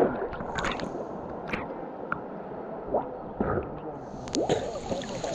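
River water lapping, sloshing and gurgling around a camera held at the waterline, with irregular drips and splashes against the lens. A steady high hiss comes in about four seconds in.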